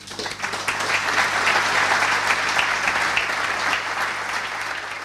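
Audience applauding. The clapping builds over the first second, holds steady, and thins a little near the end.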